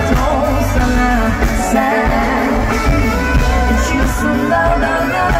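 Live pop-rock band playing, with electric guitars, and a woman singing over it.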